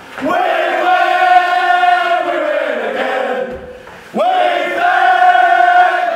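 A rugby team of men singing their victory song together in unison, holding two long notes, each starting with a swoop up in pitch; the second begins about four seconds in.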